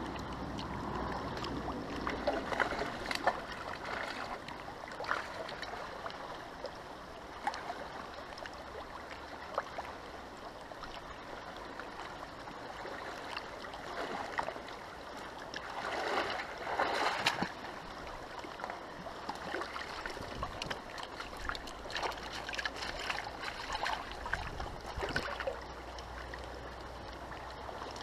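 Fast-flowing river water running steadily, with scattered small splashes and clicks. There is a louder splashy stretch a little past halfway.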